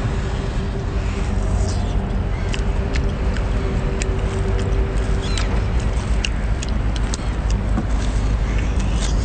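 Chewing and sucking on a whole cooked octopus: scattered wet mouth clicks and smacks over a steady low rumble with a faint hum.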